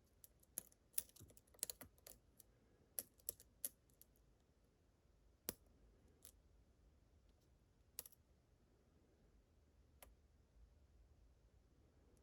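Faint metallic clicks and ticks of a lock pick working the pins of a Medeco-style rotating-pin challenge lock as the pin rotations are checked: a quick run of clicks in the first few seconds, then single clicks every couple of seconds.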